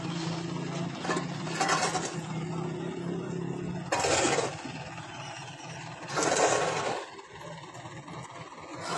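A motor vehicle's engine running steadily, fading out about four seconds in, with short loud rushes of noise about four and six seconds in.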